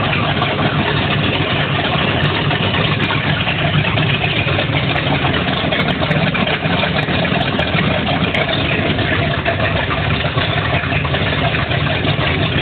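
Twin 454 big-block V8 boat engines running steadily, loud, with no change in speed.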